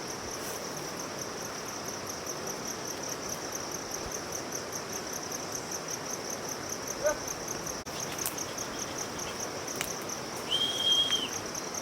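Insects, crickets or similar, chirring steadily in a high, pulsing drone a few times a second. Near the end there is a short, steady, high whistle-like tone lasting under a second.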